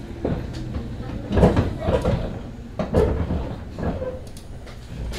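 Several knocks and thuds in the passenger cabin of a JR West 105 series electric train, over a low steady rumble. The loudest come about a second and a half in, three seconds in and just before four seconds.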